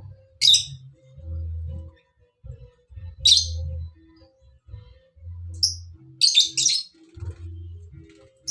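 Songbird giving short, sharp, high chirps, five in all: one about half a second in, one near the middle, then three close together in the second half.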